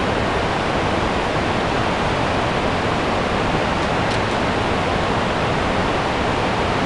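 River rapids rushing steadily over rocks, an even roar of white water.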